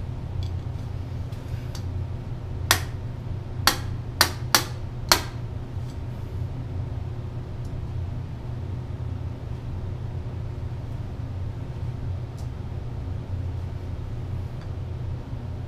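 Five sharp metal taps in quick succession, a steel rod bounced against a Hales grenade's firing pin to drive it out, over a steady low hum. One faint tap follows later.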